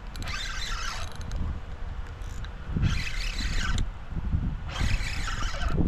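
Penn Slammer 4500 spinning reel being cranked in bursts of about a second, roughly every two seconds, as a hooked largemouth bass is fought in. A steady low wind rumble on the microphone runs underneath.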